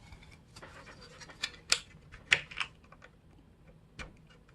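Plastic clips of a laptop's bottom case snapping loose as a knife is worked along the seam: about five sharp clicks between faint scraping.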